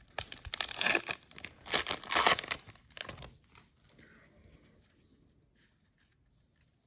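A baseball card pack's wrapper being torn open and crinkled by hand: a run of loud rustling tears over the first three seconds or so, then only faint handling.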